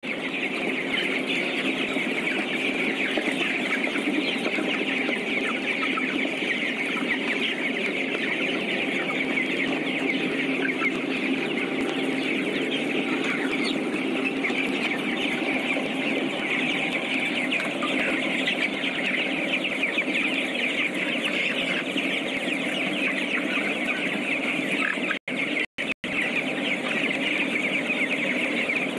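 A large flock of young broiler chickens peeping and chirping continuously, many high calls overlapping into a steady din. The sound cuts out for a moment twice near the end.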